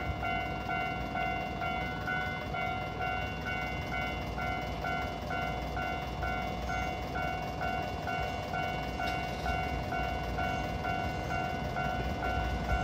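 A level-crossing warning bell rings steadily in an even, repeating beat. Under it is a low rumble as an Izukyu 8000 series electric train, a former Tokyu 8000 series, approaches slowly.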